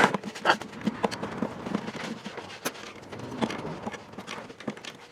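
Scattered light clicks and taps of NP231 transfer case parts being handled and fitted together during a rebuild.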